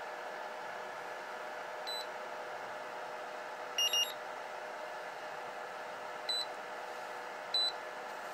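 Hobby battery charger beeping as it starts a LiFe charge and runs its battery check: a short beep about two seconds in, a quick lower double beep about four seconds in, and two more short beeps later, over a steady hum.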